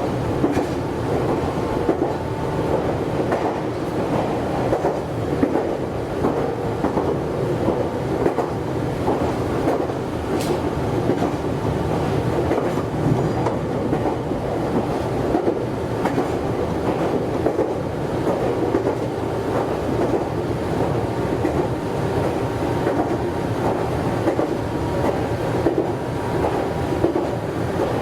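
Meitetsu 100 series electric train running along the track: a steady rumble of wheels on rails with clickety-clack over the rail joints, and a brief faint high sound about ten seconds in.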